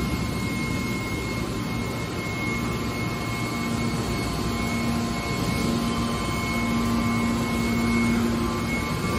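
Hydraulic scrap metal baler's power unit running with a steady mechanical drone and a low hum that grows stronger in the second half.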